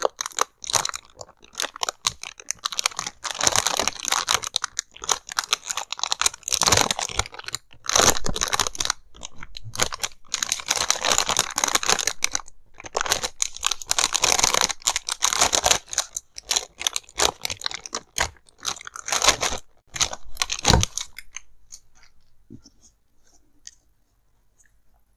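Close-miked headphone packaging being handled: crinkling, crunching and tearing of box and wrapping in quick, irregular runs of crackle, which stop near the end.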